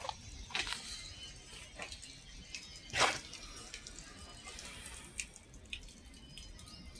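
Water dripping and splashing in scattered drops over a faint hiss, with one louder splash about three seconds in.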